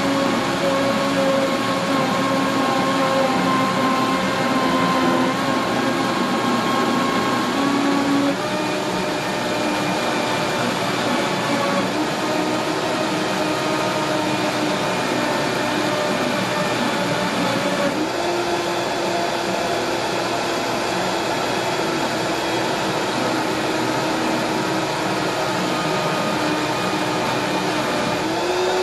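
Countertop blender running at high power, blending frozen peas and cashews with water into a soup. The steady motor whine shifts pitch about eight seconds in and again a little past halfway.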